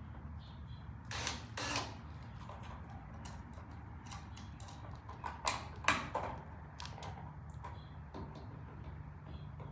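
Scattered clicks, knocks and scrapes of a new electrical outlet and its wires being pushed and fitted into the wall box, the loudest in two clusters about a second in and near the middle, over a steady low hum.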